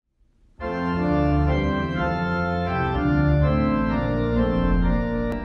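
Organ music: sustained chords that change every second or so, starting about half a second in and beginning to fade out near the end.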